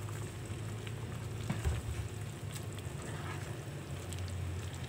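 Pot of pancit molo soup bubbling on the stove while a utensil stirs through the broth and vegetables, with a short knock of the utensil against the pot about a second and a half in.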